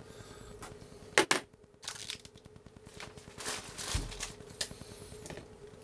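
Plastic printer accessories being handled: a sharp click about a second in, then scattered rustles and light knocks, over a faint steady hum.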